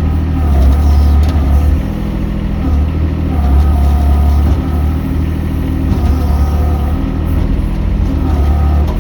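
Mini excavator's engine running steadily, swelling louder for about a second at a time several times as it is loaded.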